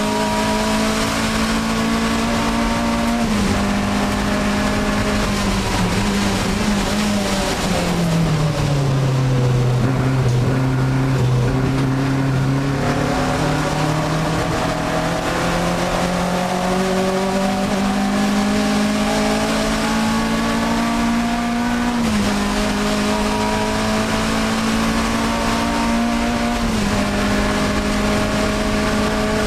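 Alfa Romeo 1750 GTV's twin-cam inline-four engine heard from inside the cabin at racing speed. Revs hold high with short drops at gear changes, sink for several seconds as the car slows, then climb steadily under acceleration, with two more upshifts near the end.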